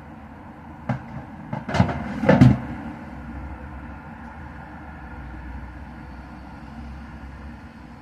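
A short cluster of knocks and clatters, about five in all and loudest near the end of the cluster, over a steady low rumble.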